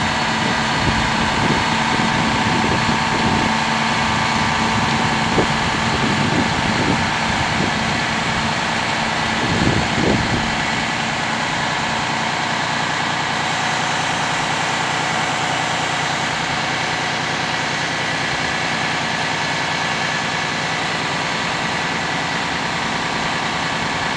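The Cummins ISM diesel of a 2008 International WorkStar 7600 roll-off truck is running while its hydraulic pump whines steadily, tilting the roll-off deck up. The deep rumble lightens about ten seconds in.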